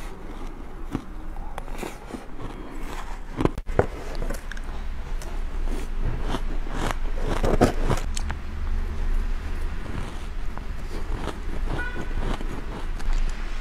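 Close-miked crunching of shaved ice being bitten and chewed, in irregular crisp crunches, over a steady low hum.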